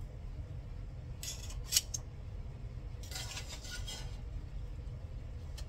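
Metal utensil scraping and clinking against a pot while pasta is stirred into cheese sauce: two spells of scraping, the first ending in one sharp clink, over a steady low hum.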